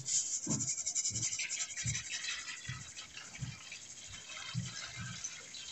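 Uncooked round rice poured from a stainless steel bowl into a saucepan of hot milk: a patter of falling grains, densest in the first second or two and then thinning, with soft low thuds about every half second.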